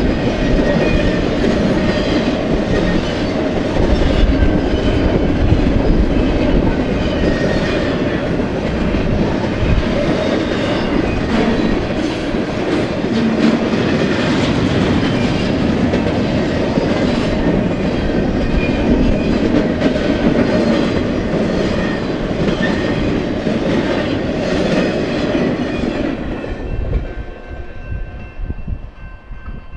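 Freight train cars rolling past, the wheels clicking over the rails in a steady clatter. The rolling noise falls away sharply near the end.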